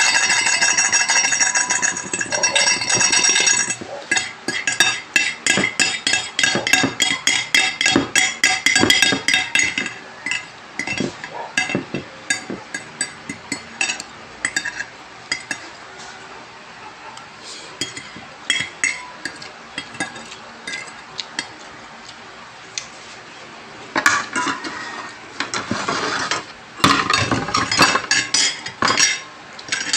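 Metal fork and spoon clinking and scraping on a plate as the last of a meal is scooped up: a quick run of clinks in the first ten seconds, scattered taps after, and another busy run near the end. It opens with a few seconds of a loud, high, steady pitched sound with several tones.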